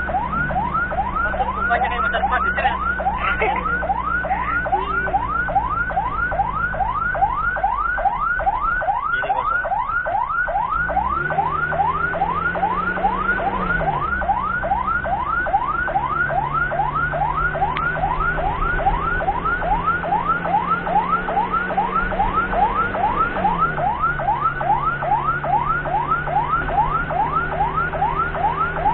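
Ambulance siren in a fast yelp: rapid rising wails, about three a second. Underneath, the ambulance's engine runs and revs up and back down twice.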